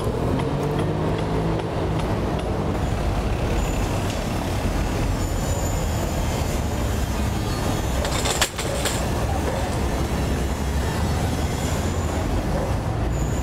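Steady outdoor street traffic noise, with a vehicle engine passing in the first couple of seconds and one sharp click about eight and a half seconds in.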